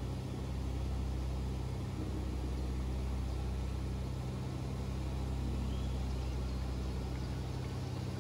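Steady, unbroken drone of aircraft engines heard from on board in flight.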